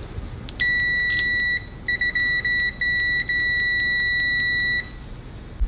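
IKOVWUK HT113 multimeter's continuity beeper sounding a high, steady tone as the probe tips are shorted. It holds for about a second, then breaks into several short beeps as the contact makes and breaks, then holds steady for about two more seconds before stopping. It measures about 61 dBA on a sound level meter.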